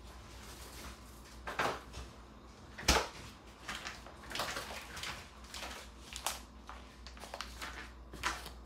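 Household handling noises in a small room: a string of knocks and clacks, the loudest a sharp knock about three seconds in, over a low steady hum.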